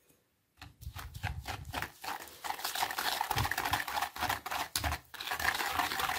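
Wire balloon whisk beating oil and ground sugar in a plastic bowl: a fast, even clatter of the wires clicking against the bowl. It starts about half a second in and pauses briefly near five seconds.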